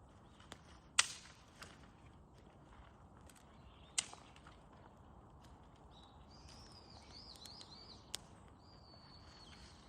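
Wood bonfire crackling: a few sharp, separate pops, the loudest about a second in and another at four seconds. Birds call during the second half.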